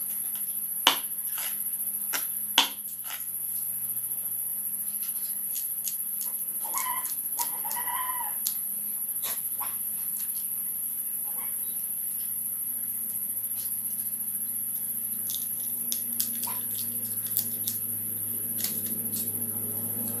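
A knife chopping through a snakehead (murrel) fish on a wooden board, with two sharp knocks in the first few seconds. Then scissors snip through the fish's head in scattered small clicks.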